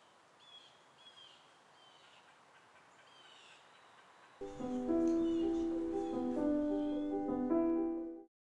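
Birds chirping faintly outdoors, short repeated calls. About four and a half seconds in, closing music comes in loudly with held keyboard chords and stops abruptly near the end.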